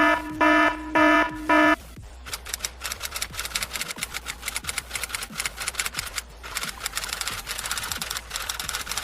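Four short electronic beeps on one pitch, then several seconds of fast, irregular clicking like keys being typed.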